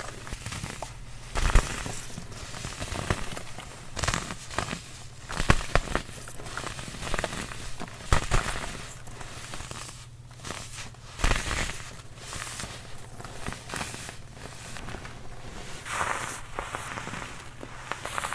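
Compressed baking soda being crushed, with irregular crunching and crackling and several sharper snaps.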